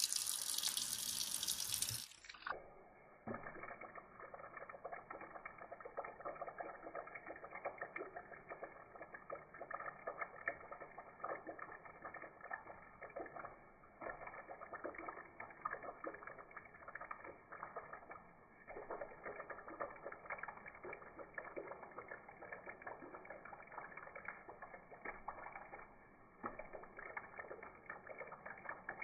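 Thin stream of tap water running into a stainless steel sink, splashing unevenly as a cat paws at it. It is louder and brighter for about the first two seconds, then goes on faint and muffled.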